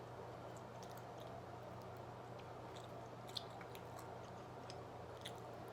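Faint close-up chewing of pizza, with a few small wet mouth clicks.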